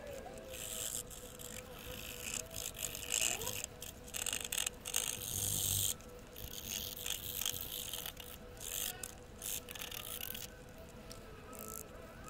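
Wooden toothpick scraping grime off the face of a Kennedy half dollar in short, irregular strokes, a dry scratchy sound.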